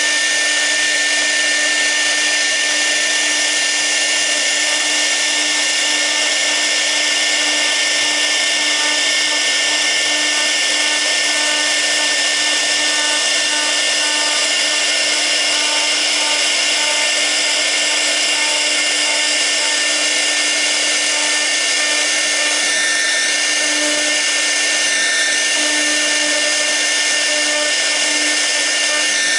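6 kW air-cooled spindle of a CNC router running steadily with a constant high tone while a V-bit carves the workpiece, with cutting noise over it.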